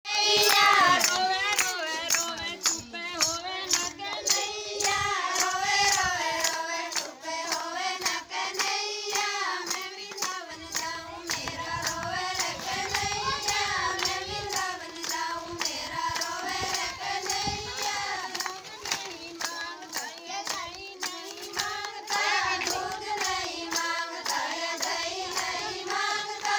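Women's voices singing a devotional Krishna bhajan, with steady rhythmic hand-clapping keeping time.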